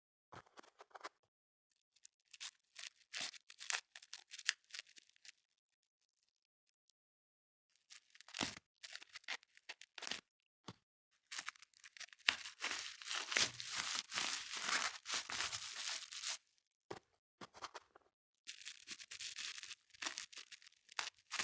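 iPhone packaging being torn and crinkled open, in irregular bursts of tearing and rustling. There is a pause of a few seconds about a third of the way in, and the longest stretch of tearing comes a little past the middle.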